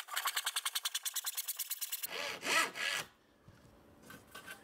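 A handsaw cutting through plywood in quick, even strokes, the final strokes of the cut. The sawing stops about two seconds in, followed by a brief rough scraping noise as the cut finishes, then near quiet.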